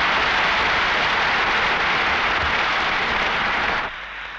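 A large audience applauding steadily. The applause cuts off abruptly near the end.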